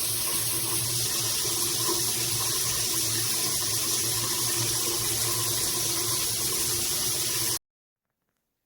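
Water spraying steadily from a shower head, an even rush of falling water that cuts off suddenly near the end.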